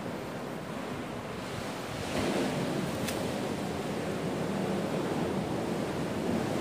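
Sea surf washing on a beach, a steady rushing noise that swells about two seconds in. A single sharp click about three seconds in.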